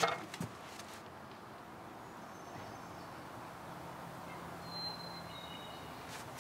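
Quiet outdoor ambience with a few faint, short, high bird chirps about halfway through.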